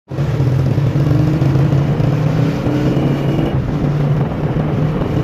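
Honda 125 motorcycle's single-cylinder engine running at a steady pace on the move, with wind and road noise.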